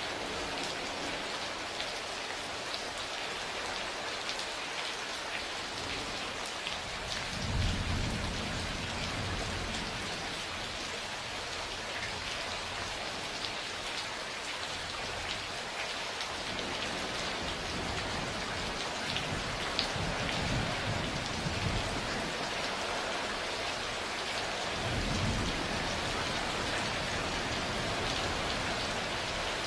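Steady heavy rain falling on a surface, with scattered drop ticks, and low rolls of thunder rumbling three times: about a quarter of the way in, around the middle, and once more later.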